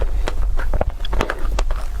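Close-up eating sounds: crisp food being bitten and chewed, a quick run of irregular crunches and crackles.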